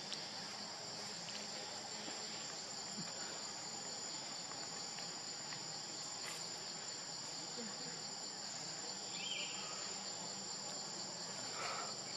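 Steady chorus of insects: a continuous high-pitched drone with a thin, unbroken whine above it.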